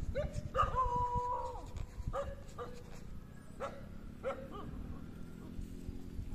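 An animal whining: about seven short, high whines, one held for nearly a second about half a second in, over a low rustling.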